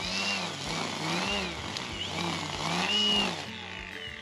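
An engine revving up and down in quick, regular surges, about one and a half a second, over a steady low hum; music comes in near the end.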